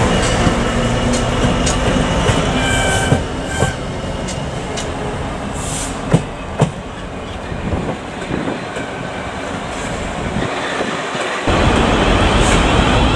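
Class 66 diesel-electric locomotive running past with its two-stroke V12 engine humming, hauling a single coach, with a brief wheel squeal about three seconds in and sharp clicks of wheels over rail joints as the coach goes by. Near the end the sound cuts suddenly to another, louder train.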